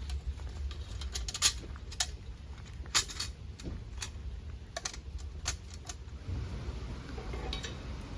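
Irregular sharp clicks and clinks, as of hard objects being handled and knocked together, over a low steady rumble; the two loudest come about a second and a half and three seconds in.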